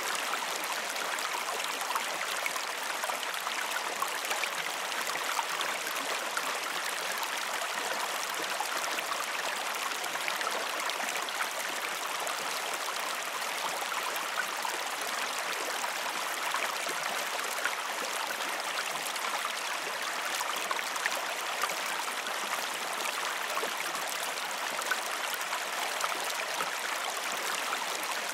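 Creek water flowing steadily over rocks, a constant babbling rush flecked with small splashes.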